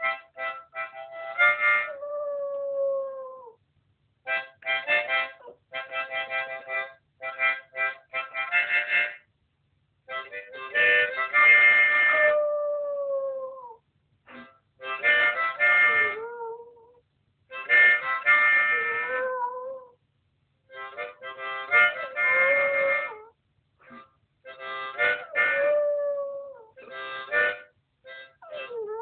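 A terrier howling along to a harmonica: short bursts of harmonica chords, again and again answered by the dog's drawn-out howls that slide down in pitch at the end of a phrase.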